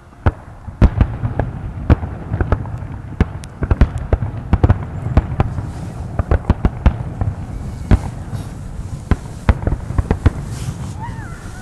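Aerial firework shells bursting in rapid, irregular succession: a continuous run of sharp bangs, several a second, over a low rumble.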